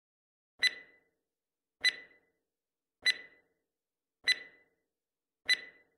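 Countdown timer sound effect ticking five times, evenly about a second apart, one tick per second of the five-second answer time. Each tick is a sharp click with a short ringing tone that fades quickly, with dead silence between ticks.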